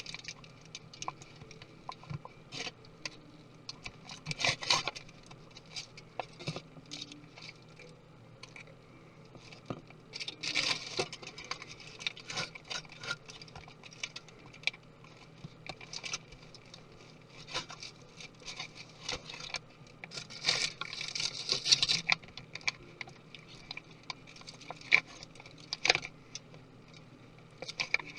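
Small clicks, taps and scrapes of tools and small parts being handled while a MacBook Pro laptop is taken apart. Longer spells of scraping and rustling come about four seconds in, around ten to twelve seconds and around twenty to twenty-two seconds.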